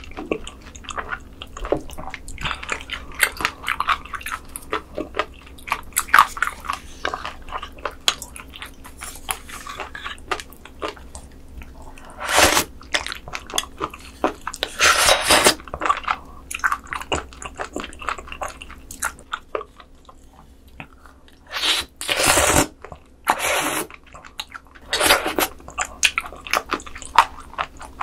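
Close-miked eating of raw seafood (squid sashimi and sea cucumber intestines): dense wet chewing and crunching, broken by several loud slurps in the second half. The last slurp is from a small dish tipped to the mouth.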